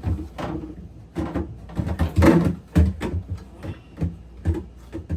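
Fridge shelf being fitted back into the refrigerator's rails: a series of irregular clunks and scrapes as it is worked into place.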